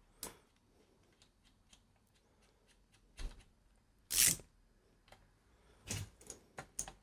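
Scattered clicks and knocks of hand tools and metal engine parts being handled, with a louder half-second clatter about four seconds in and a quick cluster of clicks around six seconds.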